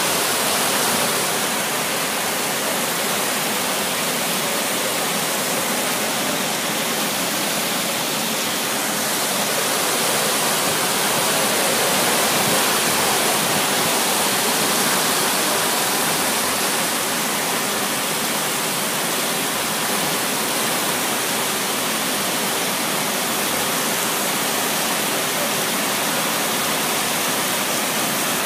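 Torrential tropical rain pouring down steadily: a dense, even hiss of heavy rainfall with no letup.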